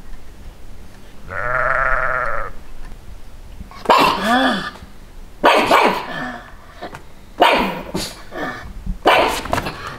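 A sheep bleats once, a wavering call about a second long, and then a pug barks four times, about one bark every second and a half, in answer to the bleating.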